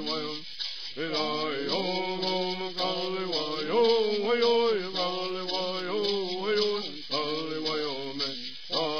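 Traditional Yuman bird song: a man's voice singing chanted phrases over a steady beat of a shaken gourd rattle. The singing breaks briefly about half a second in and again near the end.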